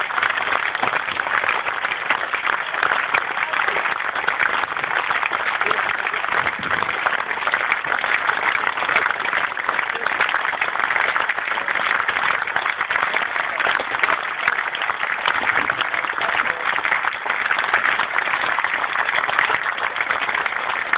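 Crowd of spectators applauding, a steady sustained clapping that does not let up.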